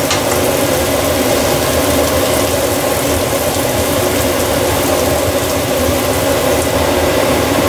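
A steady mechanical hum with a held tone over onions frying in oil in a pan, stirred with a metal spatula.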